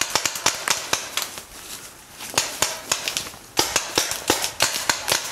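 Paintball markers firing rapid, irregular shots, several pops a second. The firing thins out briefly about two seconds in, then grows denser from about three and a half seconds.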